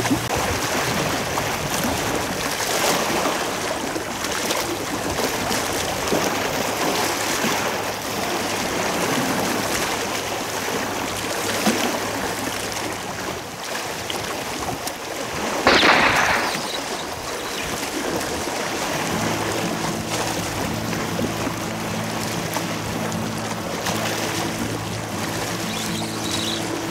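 Seawater lapping and washing at the shore, a steady hiss of water with a louder splash about sixteen seconds in. A steady low hum of several tones joins about nineteen seconds in.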